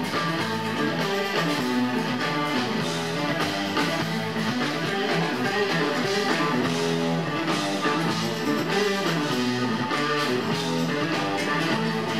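Jazz-funk fusion band playing live: electric guitar and keyboards over drums and percussion.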